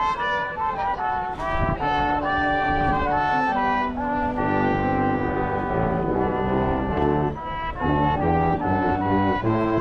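Brass music: trumpets and trombones playing a melody over held lower notes.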